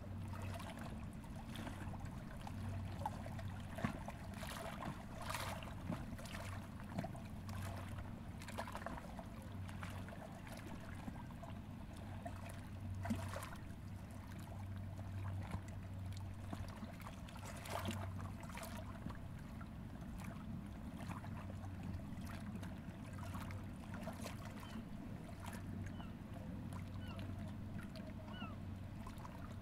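Gentle river water lapping at a rocky bank, with soft irregular small splashes, over a steady low hum.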